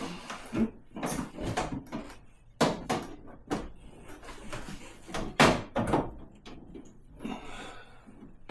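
Irregular knocks and clatters of plastic fridge parts being handled and fitted inside the freezer compartment, the loudest knock about five and a half seconds in.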